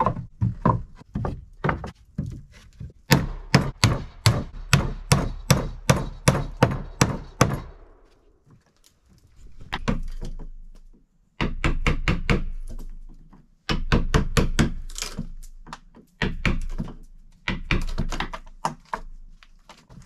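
Hammer driving nails into weathered wooden boards on a door frame, in a quick run of about three strikes a second, followed by further bursts of wooden knocks and thuds.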